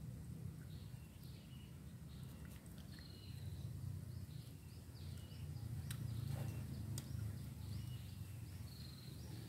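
Birds chirping in many short high notes over a steady low rumble, with a couple of sharp clicks about six and seven seconds in.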